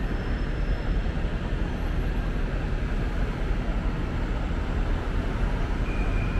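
Road traffic running past on a city street: a steady low rumble with a hiss over it, and a faint high tone near the end.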